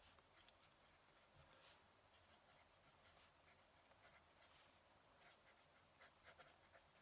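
Faint scratching of a fountain pen nib on paper, in short, irregular strokes.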